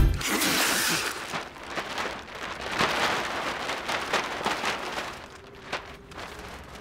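Clear plastic sheeting crinkling and rustling as a person moves under it, a dense crackle loudest in the first second that fades away toward the end.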